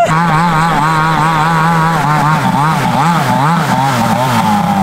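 Snowmobile engine running hard as the sled climbs a snow slope. Its pitch is fairly steady at first, then swings up and down several times a second in the second half before settling near the end.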